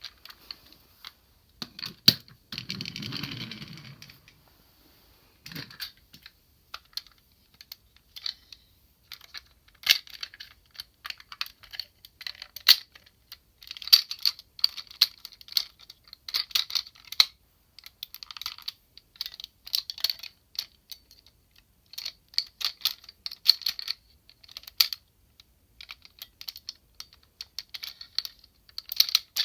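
Plastic parts of a DX Sirender transforming robot toy clicking and snapping as it is handled and transformed: irregular clusters of sharp clicks, with one longer, duller sound lasting about two seconds near the start.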